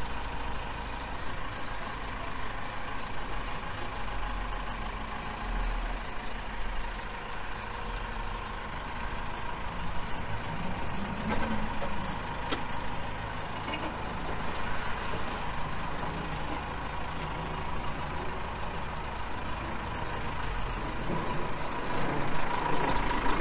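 Step van's engine running as the van is driven slowly and pulled in to park, heard from inside its boxy cab as a steady rumble.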